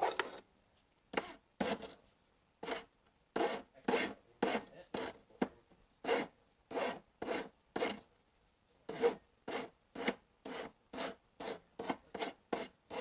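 A file rasping in short, repeated strokes, about two a second, cleaning the tip of a wire soldering pick made from a clothes hanger.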